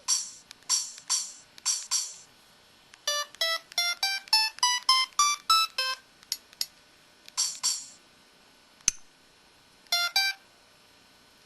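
Samsung SPH-X8500 mobile phone's key tones and effect sounds: short electronic beeps, then a quick run of about a dozen melodic notes a few seconds in, followed by a few more short tones and a single click.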